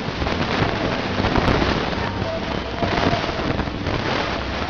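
Wind buffeting the camera microphone: a steady rough rumble and crackle.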